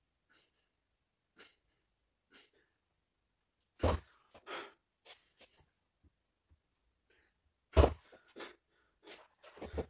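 Two loud thuds about four seconds apart as the weight hanging from the training strap is set down and handled, with short breaths and small knocks of the strap hardware between them.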